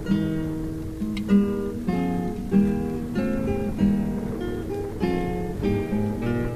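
Background music on acoustic guitar: plucked and strummed chords in a steady rhythm.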